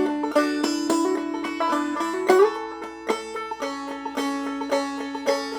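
Banjo played clawhammer style, capoed at the second fret, picking a run of notes over a held chord so the strings ring into each other.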